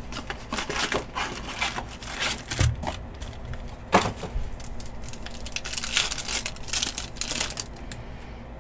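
Trading card pack wrappers crinkling and tearing as packs are opened, with sharp clicks and taps of cards and box cardboard being handled.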